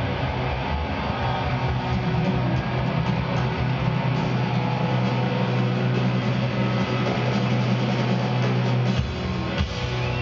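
Live rock band playing through a big hall's PA, heard from far back in the room: electric guitar over steady, held bass notes.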